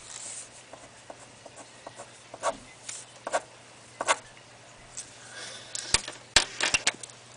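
Pen scratching on paper in a series of short drawing strokes, several in quick succession near the end, over a faint steady hum.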